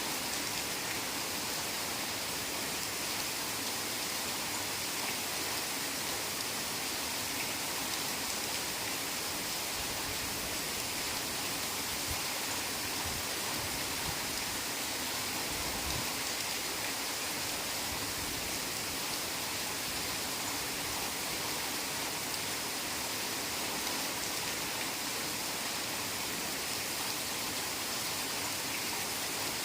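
Heavy rain falling steadily on forest foliage, an even hiss with no let-up, with a few faint low rumbles about halfway through.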